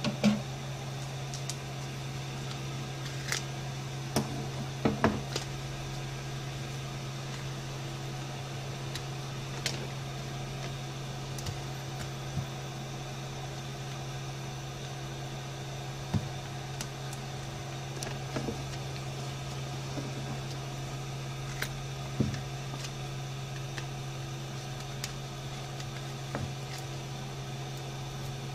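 Steady low machine hum, with scattered light clicks and taps of small tools against the phone during a smartphone screen repair.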